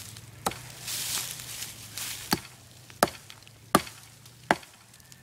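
Handmade Danish-style flint stone axe chopping into a small tree trunk: about six sharp blows, the later ones coming roughly every three-quarters of a second.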